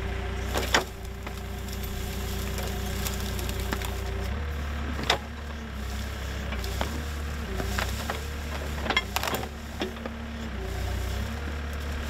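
Case 580 backhoe engine running steadily while its bucket digs and pulls through brush and roots; the engine note shifts about four seconds in as the load changes. Sharp cracks and snaps of branches and wood come through several times.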